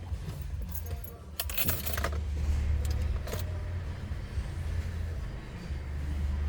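Mercedes GLC 220 engine idling with a steady low rumble while its new auxiliary battery capacitor is being tested, with metallic clinks and rattles about a second and a half in.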